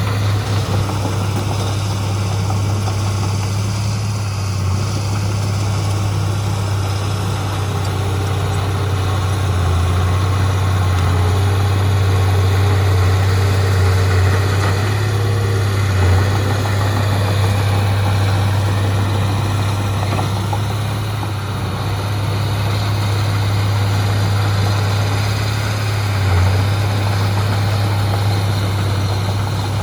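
Heavy diesel engine of earthmoving machinery running steadily, a deep, constant low hum that swells slightly now and then.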